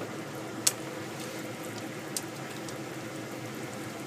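Chopsticks stirring dried egg noodles loosening in a bowl of hot water: a steady wet swishing, with a sharp click about a second in and a softer one about two seconds in as the chopsticks strike the bowl.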